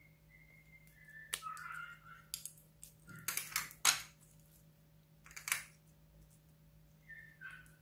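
Green slime being squeezed and kneaded by hand, giving a few separate wet clicks and squelches, the loudest just before four seconds in.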